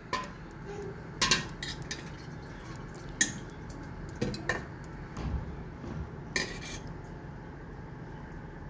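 A steel ladle clinking and knocking against an aluminium pressure cooker: about half a dozen irregular metal clinks.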